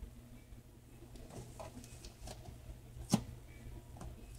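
Faint rustling and handling of a cotton t-shirt being smoothed and tugged flat over a board, with one sharp click about three seconds in.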